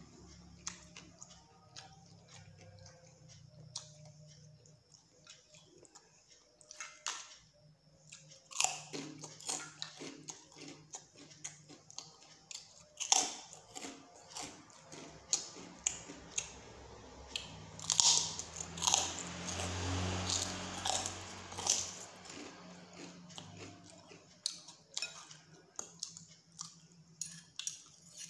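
A person chewing and biting mouthfuls of spicy instant noodle soup close to the microphone, with many short wet smacks and clicks. The loudest stretch comes about 18 to 21 seconds in, a longer noisy run among the smacks.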